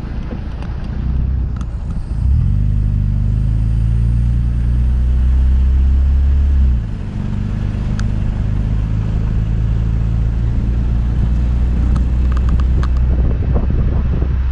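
Toyota Tacoma pickup driving on a dirt road: a steady low rumble of engine and tyres. About two seconds in, the engine note climbs and grows louder, holds, then drops away abruptly near seven seconds.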